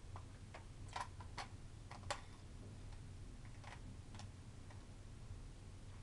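Scattered small, sharp clicks of a precision screwdriver and tiny laptop case screws being worked and handled, coming irregularly a few at a time, over a faint steady low hum.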